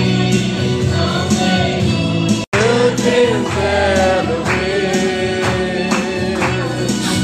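A group of voices singing a gospel song together with instrumental accompaniment. The sound cuts out for an instant about two and a half seconds in, and a different passage of the singing follows.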